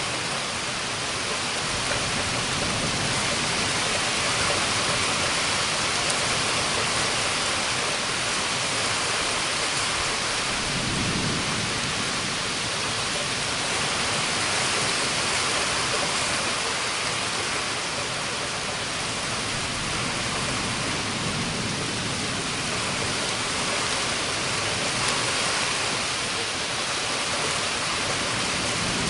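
Steady heavy rain of a thunderstorm, with soft low rumbles of thunder swelling up a few times, the clearest about a third of the way in.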